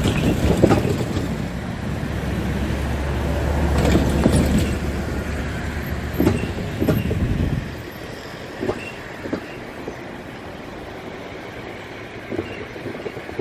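Freight train rolling by: a heavy low rumble with irregular wheel clunks and clacks. The rumble drops off sharply about eight seconds in, and a few fainter clacks follow.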